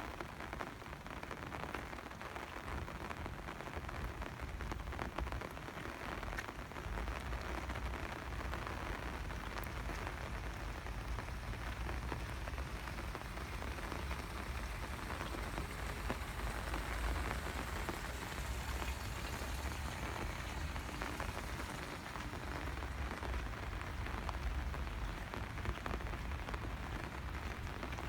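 Steady rain falling on hard surfaces, a continuous patter of individual drops, with a low rumble underneath.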